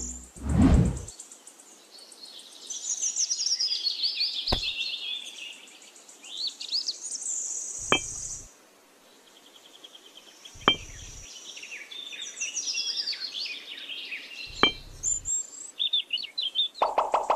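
Birds chirping and twittering, with four sharp clicks a few seconds apart as miniature clay bricks are set down one at a time. Music with a steady beat starts near the end.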